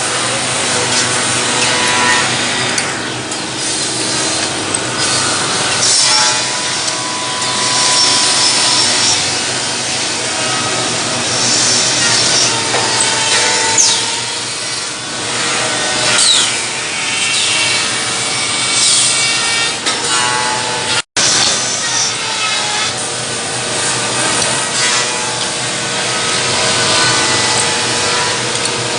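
Woodworking drilling machine running and boring into wood, a steady motor tone under continuous cutting noise. The sound drops out for an instant near the end of the second third.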